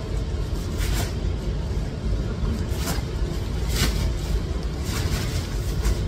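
Thin nylon bicycle cover rustling as it is shaken out and spread, in several brief swishes, over a steady low rumble.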